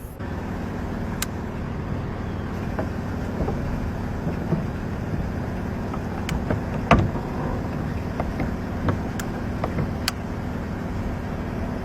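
Steady low hum of an idling vehicle engine, with scattered sharp clicks and taps, the loudest about seven seconds in.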